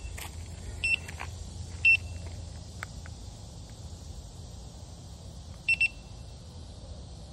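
Begode A2 electric unicycle giving short high electronic beeps: one about a second in, another about two seconds in, and a quick double beep near six seconds, over a low steady rumble.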